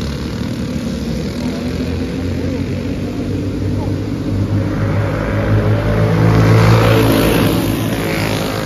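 Small racing kart engines running as a pack circles a dirt track, with one kart growing louder as it passes close about six to seven seconds in, then fading away.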